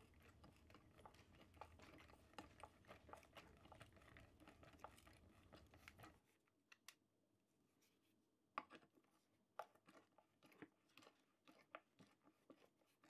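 Very faint crunching and clicking as a wood screw is driven into a pine block with a silent ratcheting screwdriver, whose cam-and-ball ratchet makes almost no sound of its own. A dense crackle for about six seconds, then sparser scattered clicks.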